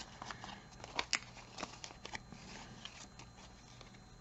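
Paper banknotes and envelopes being handled, giving faint rustling with scattered light clicks and taps.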